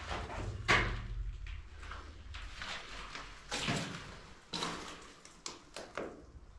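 A string of irregular scrapes and knocks, the loudest about a second in, in a small concrete room.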